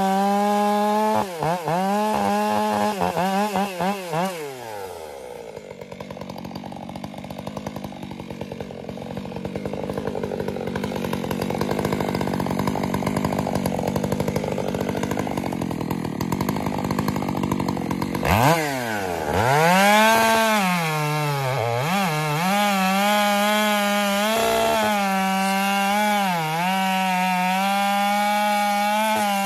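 Stihl chainsaw cutting through a shagbark hickory trunk at full throttle. It drops off the throttle a few seconds in and runs low and quiet for about a dozen seconds. About two-thirds of the way in it revs back up sharply and holds high through another cut, its pitch wavering and dipping now and then as the chain bites.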